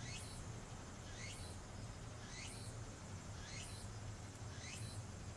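A bird's high chirp repeated evenly about once a second, each call sweeping down in pitch, over a low steady hum.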